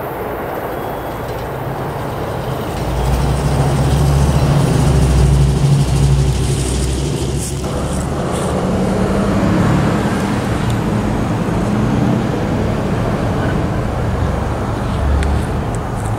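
Heavy engine rumble with a deep steady hum, swelling loud a few seconds in, over road-traffic noise. About halfway through it changes abruptly to a different, steadier engine drone.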